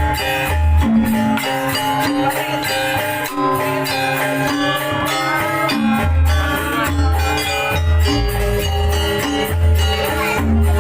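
Instrumental Janger gamelan music for an opening piece: bright tuned metal instruments playing interlocking melody lines over deep beats. The deep beats drop out for a few seconds, then come back about six seconds in as a steady pulse, roughly one every three-quarters of a second.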